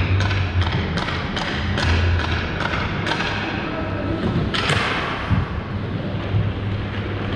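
Sharp knocks, evenly spaced at about two or three a second, echoing through an ice rink, then a louder clatter about four and a half seconds in, over a steady low hum.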